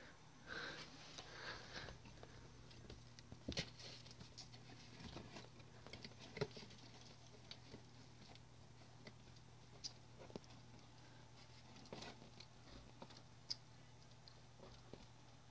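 Faint, scattered taps, scratches and light patter of three- to four-week-old kittens' paws and claws moving over cloth, plastic and a box, with a few sharper knocks, over a low steady hum.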